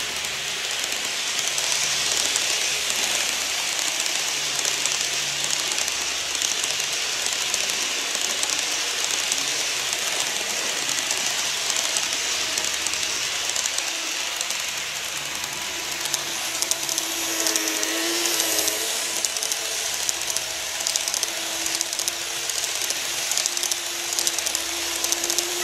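N-gauge model trains (a TOMIX 103 series and a KATO E231 series) running past on the layout track: a steady, hissing rattle of the small wheels on the rails, with a faint motor hum joining in about halfway through.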